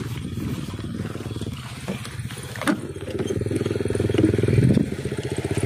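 A motorcycle engine running with a steady low pulsing rumble, louder from about halfway through, with a short knock near the middle.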